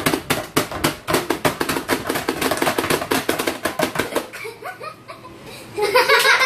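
Rapid plastic clacking of a Pie Face Showdown game's plungers being pounded by two players, about ten clacks a second, stopping about four seconds in as the splat arm flips. Children laugh and squeal near the end.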